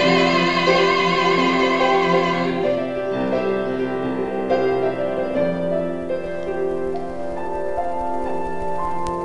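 Piano accompaniment under a held sung note with wide vibrato; the voice stops about two and a half seconds in and the piano carries on alone with sustained chords.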